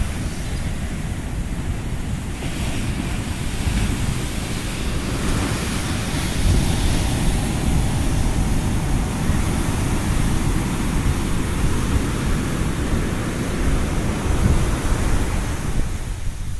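Ocean surf washing continuously onto a beach, a steady rush of breaking waves that swells and eases, with wind rumbling on the microphone.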